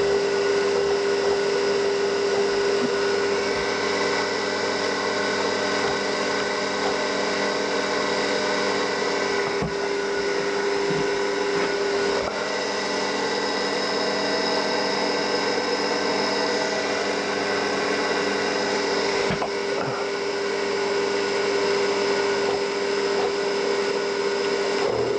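CNC mini mill spindle running steadily with a high motor whine while the cutter is touched off on the workpiece to set the zero. A few faint clicks come through over it.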